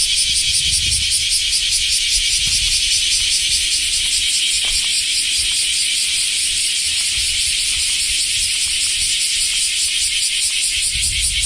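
Cicadas (semi) singing: a loud, steady, high buzz made of fast pulses, like a rattle, with no break.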